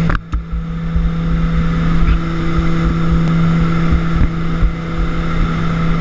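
Short SC.7 Skyvan's twin turboprop engines droning steadily in the cabin, a constant hum with gusts of wind rumbling on the microphone. The sound dips briefly just after the start.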